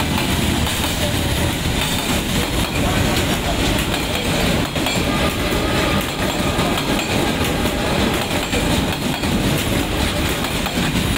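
Passenger train rolling past at close range, a steady loud rumble with the wheels clacking over the rail joints.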